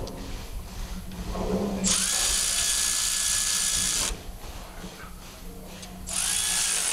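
A power tool whirring in two bursts, about two seconds and then just under a second, each starting with a short rising whine and running on with a steady hiss.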